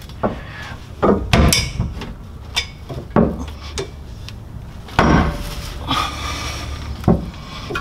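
Heavy steel bolts and hitch hardware clanking and knocking against a pickup's steel frame rail as they are fitted by hand. There are several irregular hits, with a longer rattle about five seconds in.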